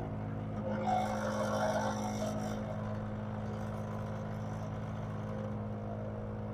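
Steady electrical hum of an LCD glass-separator machine running with its vacuum pump on. About a second in there is a brief scraping, rustling noise lasting under two seconds.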